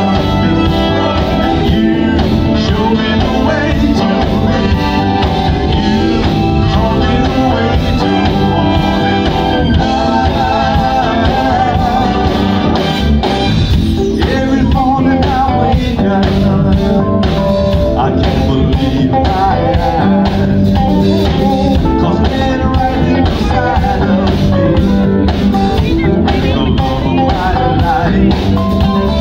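Live soul vocal group singing lead and harmony over a band of drum kit, electric bass, guitar and keyboard, amplified through a stage PA.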